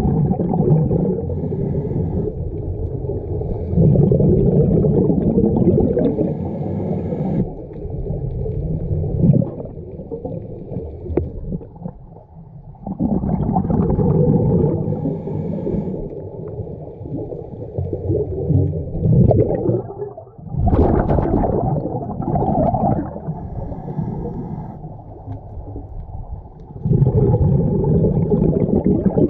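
Scuba diver breathing through a regulator underwater, heard through the camera housing: a gurgling rumble of exhaled bubbles every several seconds, each lasting two to three seconds, with fainter drawn-in breaths between.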